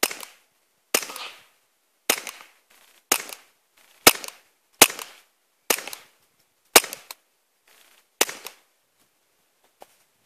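Ruger SR22 .22 LR pistol fired through a long A-tec suppressor: nine sharp cracks, each with a short tail, at an uneven pace of about one a second. The slide locks open after the ninth shot, the magazine empty.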